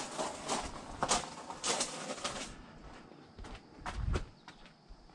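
Footsteps crunching on a gravel path: several uneven steps in the first couple of seconds, then fainter scattered clicks and a dull thump about four seconds in.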